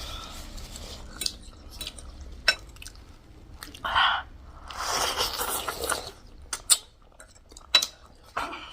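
Metal spoon and utensils clinking and scraping against a bowl of noodle soup, with a short stretch of slurping about five seconds in.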